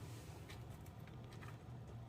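Faint room tone: a steady low hum with a few soft clicks.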